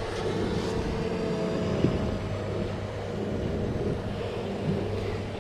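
A motor drones steadily with a low, even hum, over outdoor wind noise.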